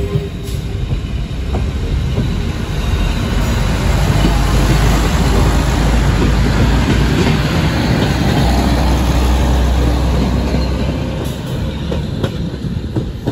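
Trenitalia ALn 668 diesel railcar set passing close by, its diesel engine running and its wheels clattering over the rails. It builds up, is loudest through the middle, and eases off near the end as it moves away.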